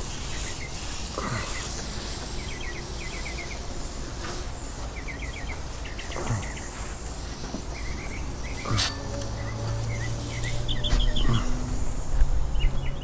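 Outdoor insect and bird ambience: a steady high insect hiss, with birds chirping in short rapid runs of four or five notes. A sharp click comes about nine seconds in, and then a low steady hum.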